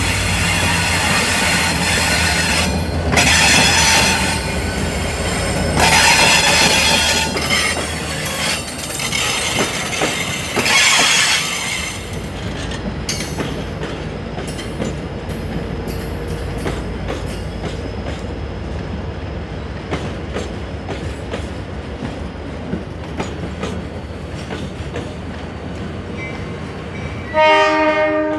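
Diesel freight locomotive D-2351 running with a train of container wagons: a steady engine drone and the rumble of the wagons on the rails, louder in the first half, then quieter with a run of rail clicks. A short horn blast sounds near the end.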